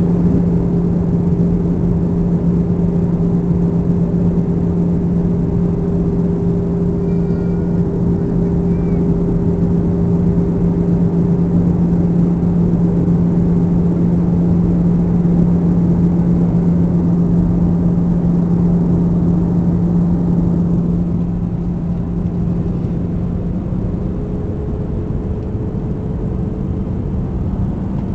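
Steady jet engine drone heard inside an airliner cabin, a loud even rush with a strong low hum, easing a little about twenty seconds in.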